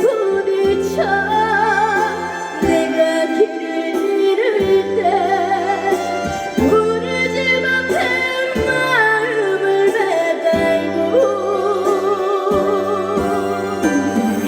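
A female voice singing a trot song with a wavering vibrato over a backing track with steady bass notes.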